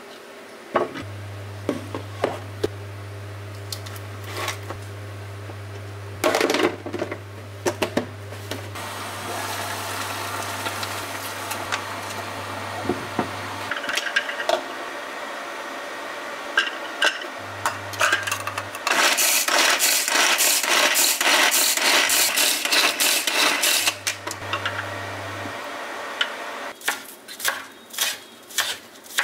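A small manual pull-string food chopper being pulled repeatedly for several seconds, its blades spinning with a fast whirring rattle inside the plastic bowl. This is followed near the end by a chef's knife chopping green onions on a wooden cutting board, about two sharp knocks a second. Lighter clatter of kitchenware comes earlier.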